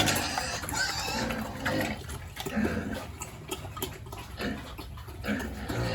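Water running and splashing in a pig pen, with pigs grunting now and then over it.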